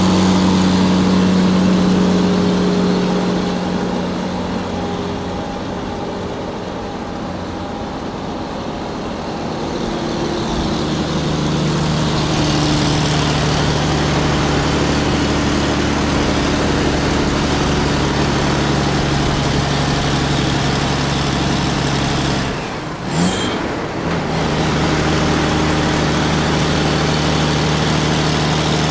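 Large truck engine running steadily while driving. Its note and loudness ease off for several seconds early on, then come back up. About 23 seconds in there is a brief drop with a short sound before it settles back to a steady run.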